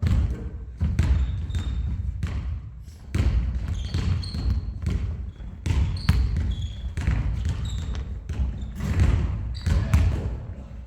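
Basketballs bouncing on a gym court: irregular, overlapping thuds, with short high squeaks scattered between them.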